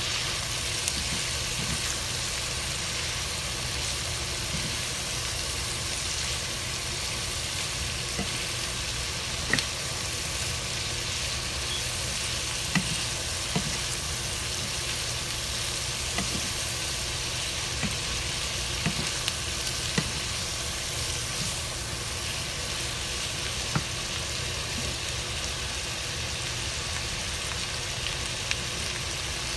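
Beef and vegetables sizzling steadily as they stir-fry in a frying pan. A wooden spoon knocks and scrapes against the pan in scattered sharp clicks as the food is turned.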